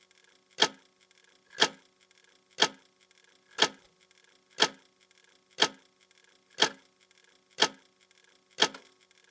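A clock ticking steadily, one sharp tick each second, with a faint ringing tone carrying between the ticks.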